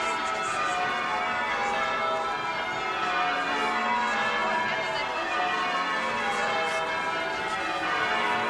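Tower bells change ringing: a continuous peal of overlapping bell strokes.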